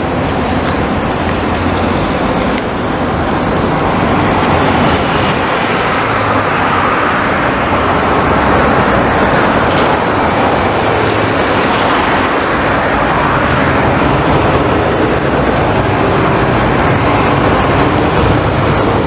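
Street traffic at an intersection: cars and a city bus passing, a steady mix of engines and tyres that grows a little louder a few seconds in.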